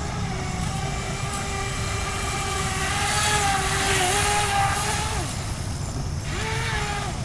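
Brushless electric motor of a radio-controlled vehicle whining at high speed as it skims across flood water, with a hiss of spray that peaks about three to four seconds in. The whine drops away a little after five seconds and rises again shortly after six as the throttle comes back on.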